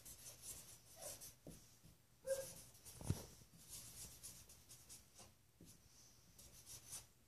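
Faint scratching strokes of a felt-tip marker writing words on a white writing surface, with one soft knock about three seconds in.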